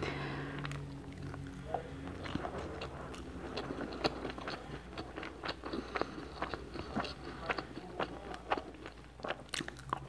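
Close-miked eating sounds: a wooden spoon scooping and scraping rice across a plate, with many sharp, irregular clicks of spoon and mouth, and a bite of rice taken near the end.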